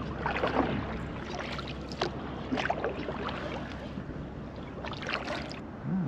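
Kayak paddle strokes splashing in the water, four or so over a few seconds, over a steady low rumble of wind on the microphone.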